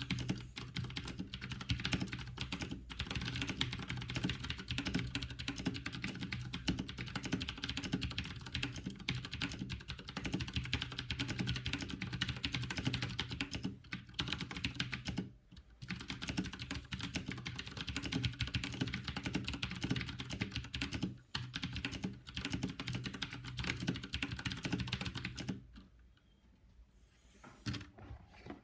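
Fast continuous typing on a HyperX Alloy mechanical keyboard with clicky Cherry MX Blue switches, a rapid stream of key clicks with two brief pauses. The typing stops near the end, leaving just a few scattered keypresses.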